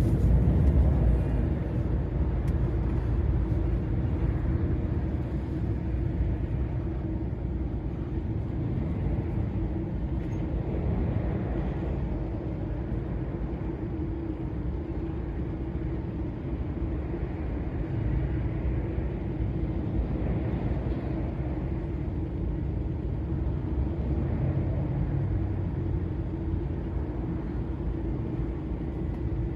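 Steady engine drone and tyre rumble of a DAF XF 480 lorry, with its PACCAR MX-13 straight-six diesel, cruising on a motorway, heard from the cab. It is a little louder in the first second or so.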